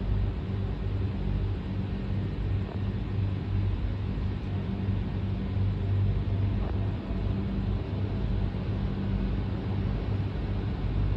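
Steady low hum with a constant drone and an even rumbling noise beneath it, unchanging throughout.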